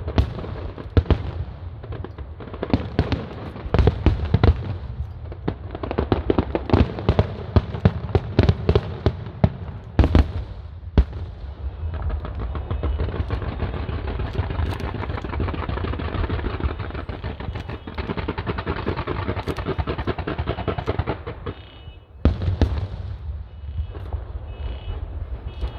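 Fireworks show: aerial shells bursting in rapid succession with deep booms. About halfway through, the booms give way to a dense, continuous crackling barrage that cuts off suddenly near the end, and then the bursts start again.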